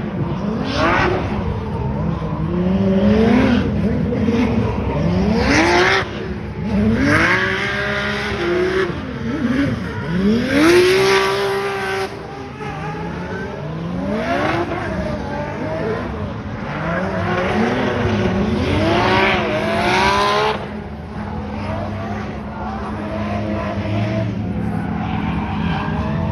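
Drift car's engine revving hard, its pitch sweeping up and dropping again and again as the driver works the throttle, with tyres squealing as they spin and slide.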